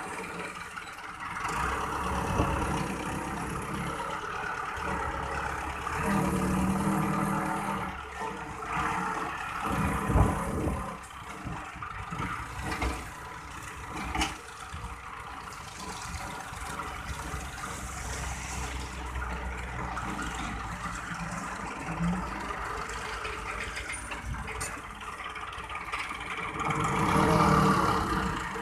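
Massey Ferguson 375 4WD tractor's four-cylinder diesel engine running, rising in revs and loudness several times while working the front loader as it lifts and dumps a bucket of straw chaff.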